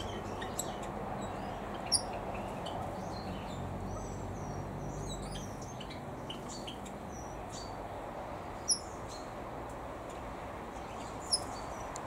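Scattered short, high chirps and tweets from small birds in a mixed aviary over a steady background hiss, with three sharper, louder chips: about two seconds in, near nine seconds and near the end.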